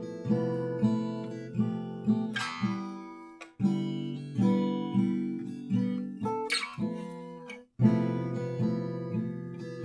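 Acoustic guitar played as chords, each hit ringing out and decaying in a steady rhythm. Two harder, brighter strums stand out, and the playing stops for a moment about three quarters of the way through before picking up again.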